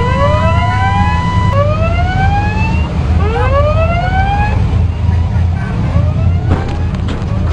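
A ship's electronic siren whooping: a rising tone repeated about once a second. Under it runs the steady drone of ship engines with rushing water. A steady beeping tone sounds for the first second and a half.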